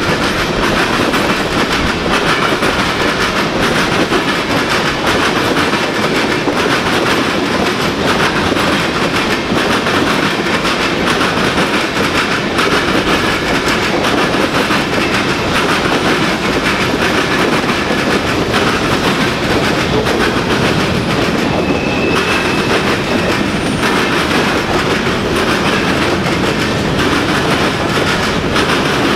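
Freight train cars passing close by: tank cars and covered hoppers rolling steadily on steel wheels, with a continuous rumble and the clickety-clack of wheels over rail joints.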